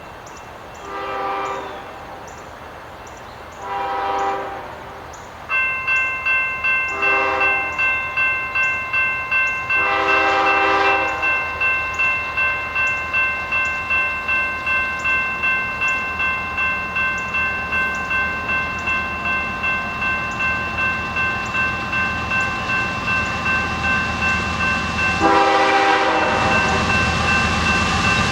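Freight locomotive's air horn sounding the grade-crossing signal, long, long, short, long, as the train approaches. About five seconds in a crossing warning bell starts ringing steadily, about two strikes a second. Near the end the lead locomotive (a GE ES44AC) comes up with a loud horn blast and the rumble of its diesel engine.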